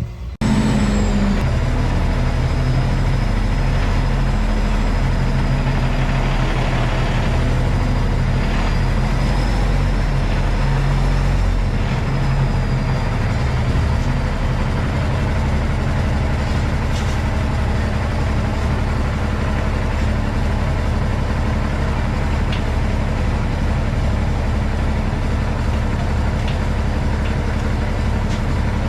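Cummins ISX inline-six diesel engine of a Peterbilt 379 truck running steadily at low speed while the truck backs in.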